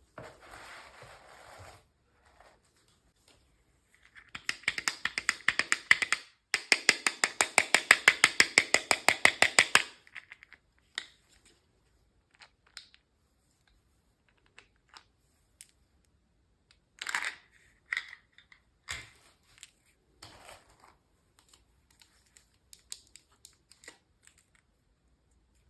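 Hands unboxing miniature toys: a brief rustle of packaging, then two long runs of rapid, even clicking at about ten clicks a second, followed by scattered clicks and taps of small plastic pieces being handled.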